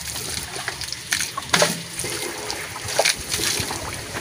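Water thrown by hand from a bucket against a tractor's rear tyre: a few irregular splashes, with water trickling and dripping in between.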